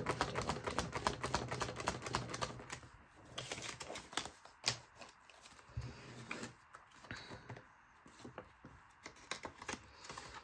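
Plastic binder pockets and polymer banknotes being handled: a quick patter of small clicks and crinkles for the first three seconds, then scattered crinkles and taps.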